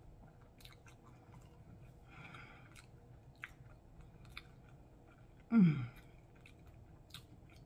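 A person chewing a mouthful of food with the mouth closed, making soft, quiet mouth clicks and smacks. About five and a half seconds in comes one brief, loud hum of the voice that falls in pitch.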